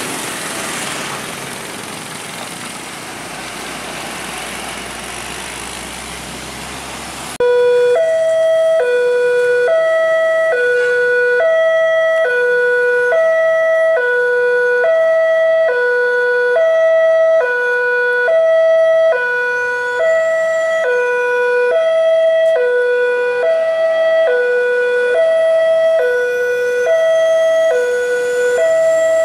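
A steady rushing noise, then about seven seconds in a railway level-crossing warning alarm starts abruptly and goes on, an electronic signal alternating between a low and a higher tone, roughly one pair a second, warning that a train is approaching.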